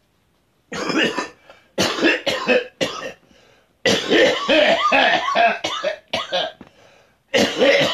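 A man coughing and laughing in short, loud bursts that start under a second in.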